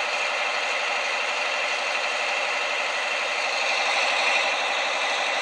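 The Champion 100T grader's 16-cylinder two-stroke GM Detroit Diesel engine running steadily, a dense, even rattle that sounds thin, without any deep bass.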